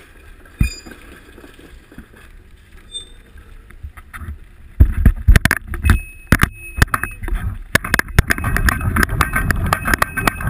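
A bicycle and its handlebar-mounted camera rattling and knocking as the bike rolls over a rough road surface. Quiet rolling noise at first, then from about five seconds in a rapid, loud run of knocks and jolts over a low rumble.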